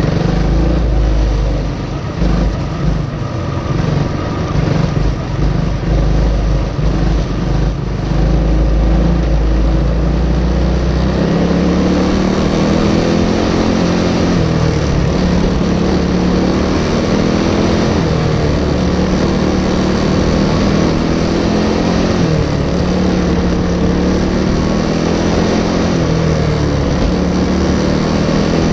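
Racing kart's single-cylinder Briggs & Stratton Animal four-stroke engine heard onboard, its revs rising and falling continuously as it laps the track. A heavy low rumble sits under it for the first ten seconds or so.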